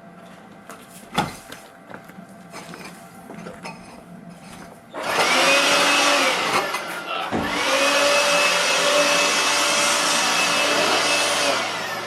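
Cordless battery-powered tool's fan motor running. It spins up with a rising whine over a steady rush of air about five seconds in, cuts out briefly, then starts again and runs steadily before winding down at the end. A sharp knock comes about a second in.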